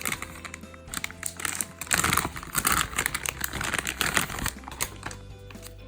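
Crinkling plastic packaging being handled, in a dense crackly run about two seconds in, over soft background music.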